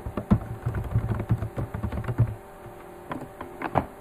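Typing on a computer keyboard: a quick run of key clicks for about two seconds, then a few more clicks near the end.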